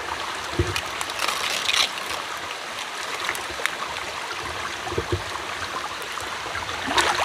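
Shallow ditch water running and trickling, with splashing and sloshing as bare hands grope through the water and mud of the bank to catch fish by hand. It gets briefly louder twice, about one and a half seconds in and near the end.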